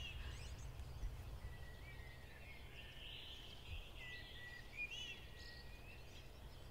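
Faint birdsong over a steady low background rumble: scattered short chirps and thin whistled notes.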